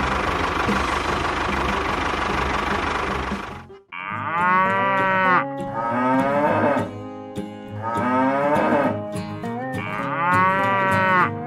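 A small engine runs steadily and cuts off abruptly about four seconds in. Then come three long mooing calls, each about two seconds, with the pitch bending.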